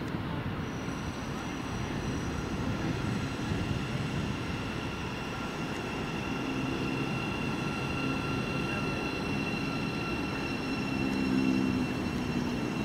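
A train running through the station, a steady rumble with several steady high whining tones over it and a lower hum that joins about halfway through.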